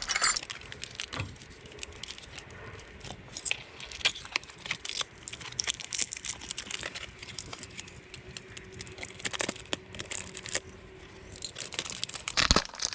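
Brake pads being handled: scattered small metallic clicks and clinks, with some light rustling, as an old pad is set beside a new one to compare them.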